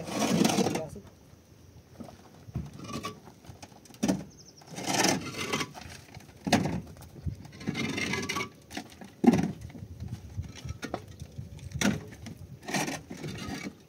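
A series of irregular knocks and scraping or rustling noises, one every second or two.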